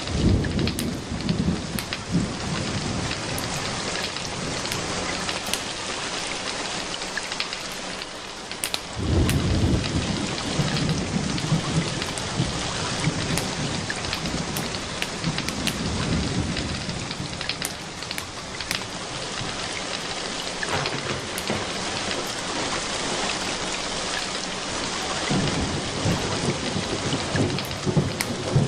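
Steady rain with thunder rumbling three times: at the start, loudest about a third of the way in, and again near the end. Sparse sharp crackles from a wood fire in a fireplace run through it.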